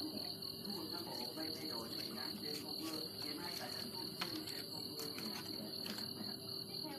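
Crickets chirping in a steady, high, continuous trill, with a few faint clicks.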